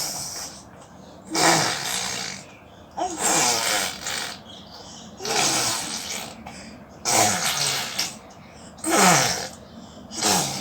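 A baby imitating a car engine with its voice: about six buzzy bursts, each around a second long and falling in pitch, with short pauses between.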